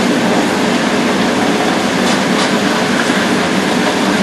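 Steady roar of a commercial kitchen's exhaust hood fans and ventilation, with a couple of light ticks about two seconds in.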